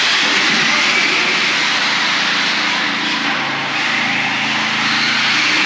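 Several battery-powered RC cars racing on concrete: their electric motors whine, the pitch gliding up and down with throttle, over a steady noise of tyres. The sound echoes in an enclosed concrete parking garage.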